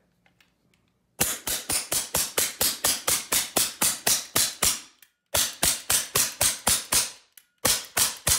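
AEA HP SS .25 PCP air rifle firing semi-auto in rapid succession, about five sharp shots a second, in three strings with short breaks about five and seven seconds in. It is cycling properly at a fill pressure of about 23 MPa.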